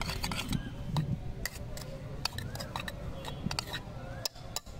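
Stainless-steel cup clinking and rattling as shredded raw mango and spice masala are tossed and stirred by hand in it: irregular sharp clicks and taps.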